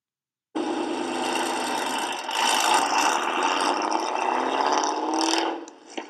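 A 2013 Shelby GT500's supercharged 5.8-litre V8, breathing through American Racing long-tube headers, an off-road H-pipe and Ford Racing mufflers, accelerating hard away. The exhaust gets louder about two seconds in and rises in pitch as it pulls, then cuts off suddenly near the end.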